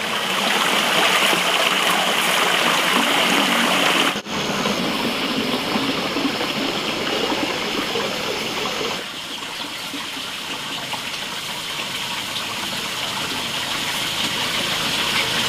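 Water pouring from a pipe and splashing into a stream, a steady rushing. The sound breaks off for an instant about four seconds in, then goes a little quieter about nine seconds in.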